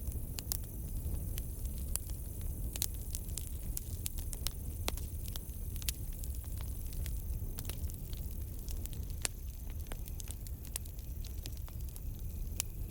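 Campfire burning: irregular sharp crackles and pops over a low steady rumble, with a faint steady high chirring of crickets behind.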